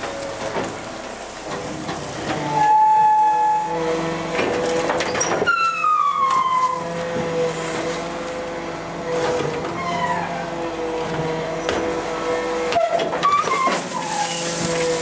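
MacDonald Johnston side-loader garbage truck's hydraulics and packer running, a steady whine of several held tones with metallic squeals that slide down in pitch, clearest about six seconds in. Near the end a binload of green waste tumbles into the hopper with a rushing rattle.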